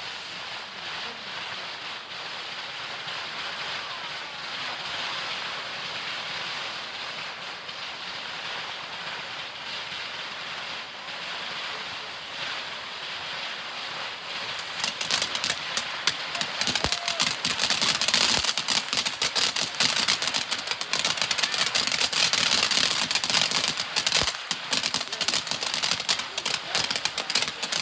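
A long-burning ground fountain firework spraying with a steady hiss; about fifteen seconds in it grows louder and starts crackling densely.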